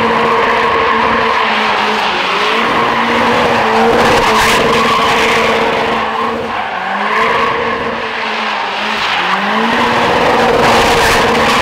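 Mazda Miata drifting: its engine held at steady high revs, dipping and climbing back a few times, over the screech of sliding tires.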